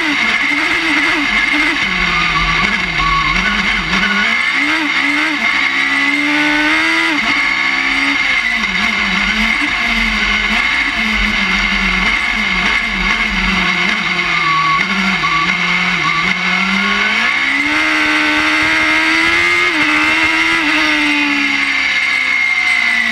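Suzuki Hayabusa inline-four motorcycle engine of a rallycross crossbuggy, heard from the cockpit at race pace. The revs rise and fall again and again through shifts and lifts, then climb and stay high on a long pull near the end before dropping off. A steady high whine runs over the engine throughout.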